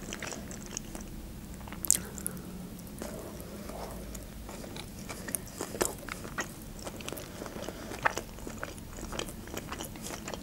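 Close-miked chewing of a cucumber-wrapped sushi roll: many small wet mouth clicks and soft crunches, with louder smacks about two seconds in and again at about eight seconds, over a faint steady low hum.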